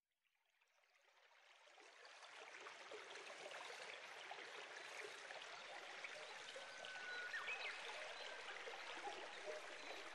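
Steady rushing sound of running water, fading in over the first two seconds, with a brief high tone about seven seconds in.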